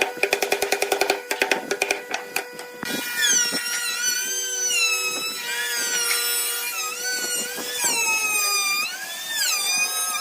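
Background music: a fast, clicking percussive passage for the first few seconds, then a wavering, sliding lead melody over steady held tones.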